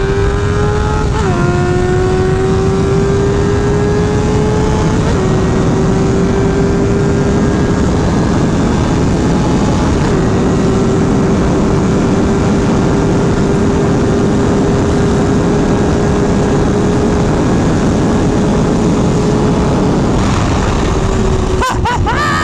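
Tuned Honda CBR 600F inline-four engine pulled hard through the gears, its pitch climbing and briefly dropping at upshifts about a second, five seconds and ten seconds in. It then holds a high, nearly steady note at speed under heavy wind noise. Near the end it eases off.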